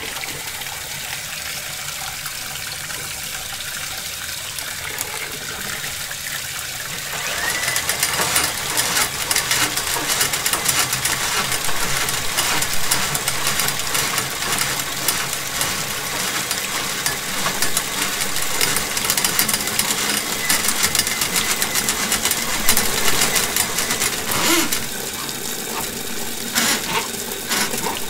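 Water from a faucet pouring into a plastic laundry tub and running down its drain, a test of the drain just cleared of a grease blockage. It grows louder and more splashy about seven seconds in and keeps going.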